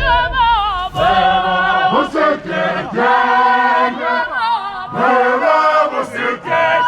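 Music of several voices singing together in a choir-like chorus: long held notes with vibrato, in short phrases with brief breaks between them.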